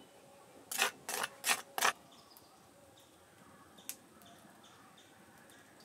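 Four quick scrapes of a metal spoon on a wooden tray about a second in, clearing ground paste off the spoon, then one light click later on.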